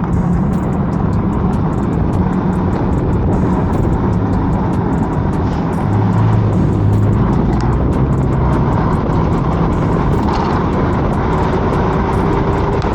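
Steady rush of wind on the microphone and tyre noise while riding an electric bike at speed, with a low hum underneath that grows a little louder about six seconds in.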